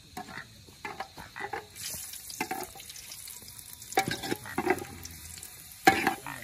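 Chopped onions frying in oil in a large metal pot over a wood fire, sizzling, while a metal ladle stirs and scrapes against the pot. The ladle knocks hardest about four and six seconds in.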